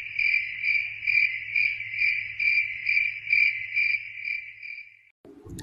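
Cricket chirping sound effect, the comic 'awkward silence' cue: one high trill pulsing about two and a half times a second, fading out near the end.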